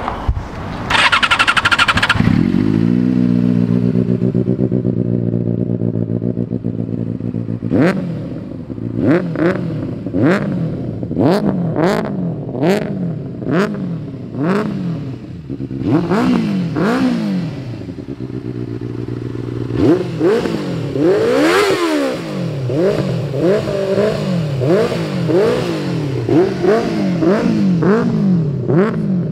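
Benelli TNT 600i inline-four motorcycle with an aftermarket exhaust, cranked and started about two seconds in, then idling. From about eight seconds on the throttle is blipped again and again, each rev rising and falling quickly, more often toward the end.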